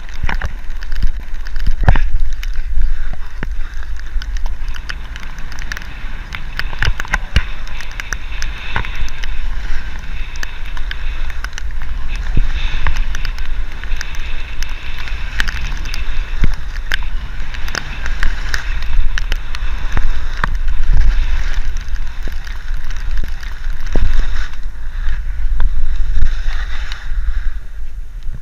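Wind buffeting the microphone of a camera riding downhill, over the hiss and scrape of a rider's edges on packed snow, with many sharp clicks and knocks as the camera jolts over the bumps.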